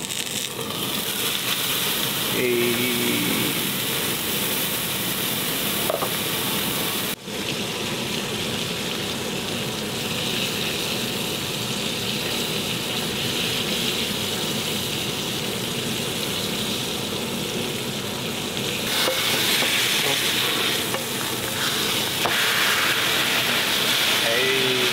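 Salmon fillet sizzling steadily in oil in a non-stick frying pan, with a spatula scraping and turning it in the pan. The sizzle cuts out for an instant about seven seconds in.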